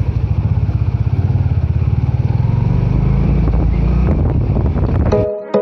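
Motorcycle engine running steadily while riding, heard from the handlebars with road noise. It cuts off abruptly about five seconds in and music begins.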